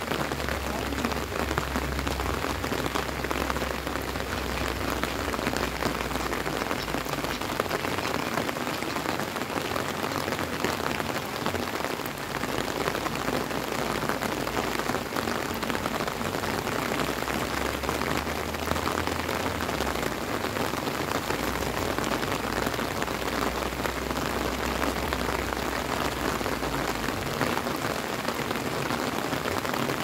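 Steady rain falling on grass and a wet paved road: an even, dense patter that keeps up without a break.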